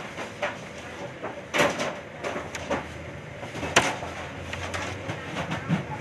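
Irregular knocks and clicks of work at a bakery's steel worktable, the sharpest a little past halfway.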